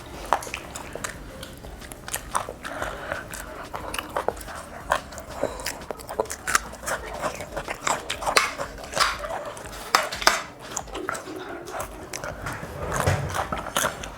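Close-miked eating: biting, chewing and lip-smacking on food, a rapid irregular run of short crunches and smacks.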